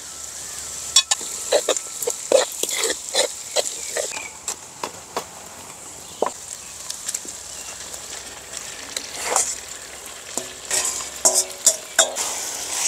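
Duck meat sizzling in a hot pan while it is stirred, with a steady frying hiss and irregular clicks and scrapes of the utensil against the pan.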